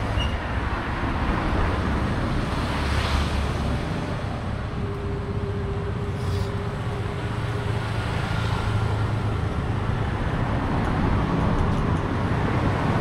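Outdoor traffic noise: a steady low rumble of road vehicles with a faint engine hum.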